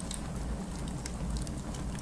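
Wood fire burning in a fireplace, crackling with scattered sharp pops over a steady low rumble.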